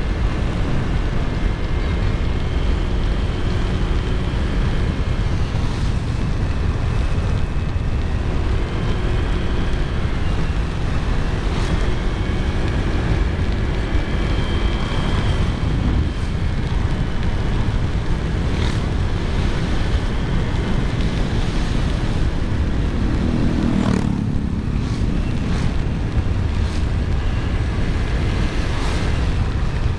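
Motorcycle ridden at road speed on a wet road: steady wind rush over the microphone, with the engine and tyre hiss beneath and a few sharp ticks along the way.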